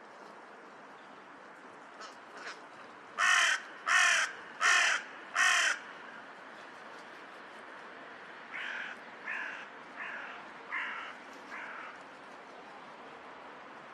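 Crows cawing: two faint short calls about two seconds in, then four loud harsh caws in quick succession, then a run of five fainter caws from about eight and a half to twelve seconds.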